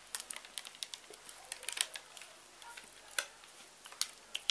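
Thick carrot cake batter being poured from a ceramic mixing bowl into a parchment-lined cake tin: faint, irregular small clicks and soft wet plops.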